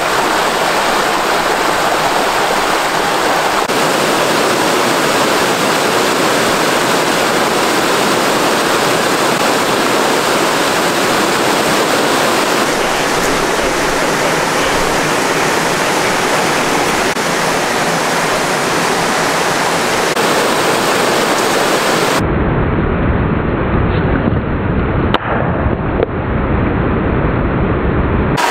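Mountain creek rushing over rocks and boulders: a steady, even rush of water. About 22 seconds in the sound turns duller and lower, with a rumble and a couple of knocks.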